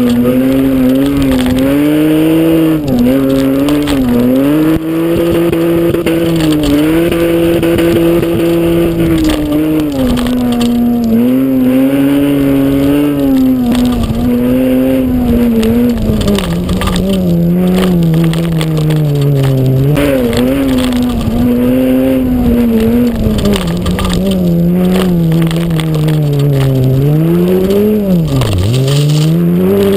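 Mitsubishi Magna front-wheel-drive V6 racing flat out on a gravel track. The engine note climbs, holds and drops again with throttle and gear changes, over a constant rush of gravel and wind noise. Near the end it dips sharply and picks straight back up.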